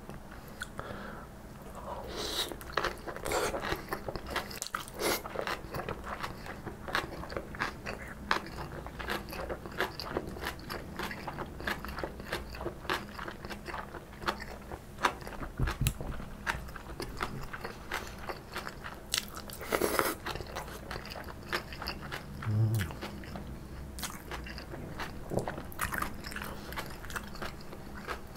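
Close-miked chewing of soft tofu and lightly stir-fried napa cabbage kimchi: a steady run of crisp, crackly crunches from the kimchi with wet mouth sounds, repeated bite after bite.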